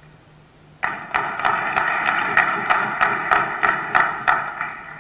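Audience of legislators applauding, clapping with a run of thumps about three a second. It starts abruptly about a second in and fades near the end.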